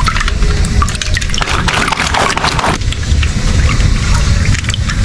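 Water running from a hose into a large stretchy rubber toy, filling it, with small splashes and drips and a louder rush of water near the middle.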